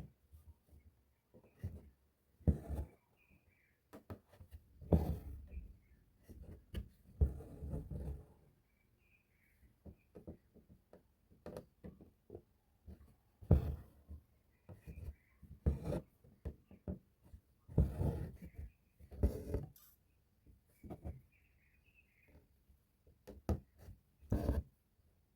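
Hand embroidery: a needle and thread being pushed and drawn through taut fabric, making irregular rasps, pops and taps every second or two, with longer swishes as the thread is pulled through.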